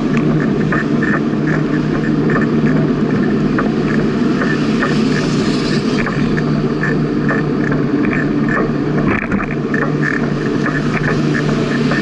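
Steady rushing ride noise of a bicycle rolling along a paved path at about 16 km/h: tyre and wind noise on a bike-mounted camera, with a steady low hum and quick light ticks.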